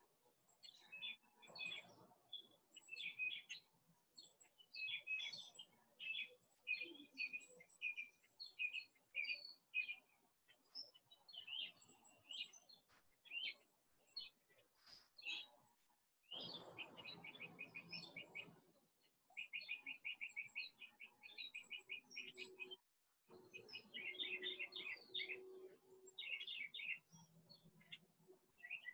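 Faint songbirds chirping, with several rapid trills of quickly repeated notes.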